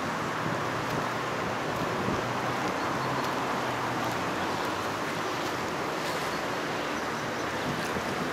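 Steady rushing of a fast-flowing river in flood, high, muddy water running past the banks.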